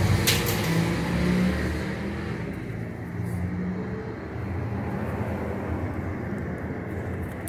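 A motor vehicle's engine running with a low, steady hum that eases off after about two seconds.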